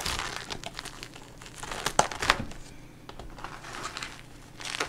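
Plastic cling wrap being peeled off a food container and crumpled by hand: irregular crinkling and crackling, with a few sharper snaps about two seconds in and again near the end.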